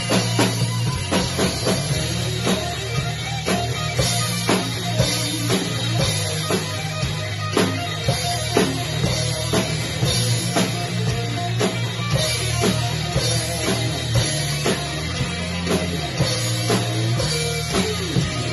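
Rock music with a drum kit keeping a steady beat under sustained electric guitar.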